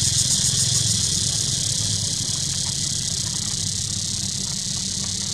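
Steady outdoor background noise: a continuous high-pitched drone over a low, even rumble like an idling engine, with no distinct calls or impacts.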